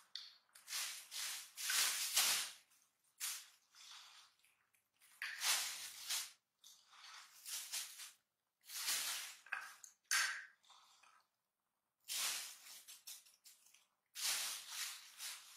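Monkeys eating from plastic plates: irregular short bursts of rustling and light clattering, a few each second, with brief gaps between them.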